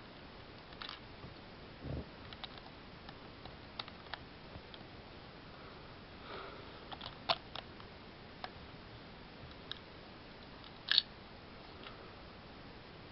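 Plastic Lego bricks and parts clicking and knocking as they are handled and fitted back together, with a soft thump about two seconds in and scattered sharp clicks, the loudest near the middle and about three quarters through.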